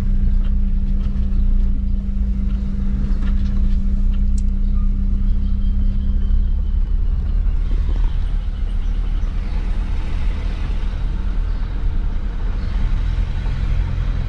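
Vehicle engine running at low speed with road rumble, heard from inside the cab. A steady low hum shifts about eight seconds in, and a lower hum comes in near the end.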